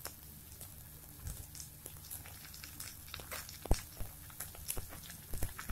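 Snake gourd slices sizzling in hot mustard oil in a wok, with scattered crackles and pops. A sharp knock sounds just before four seconds in, with a few smaller ones near the end.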